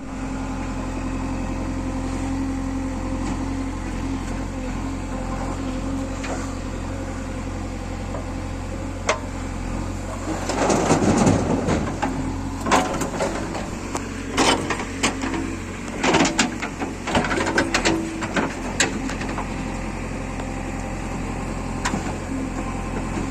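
A JCB 3DX backhoe loader's diesel engine runs steadily. About halfway through there is a burst of scraping, followed by a string of sharp clanks and knocks from the working machine.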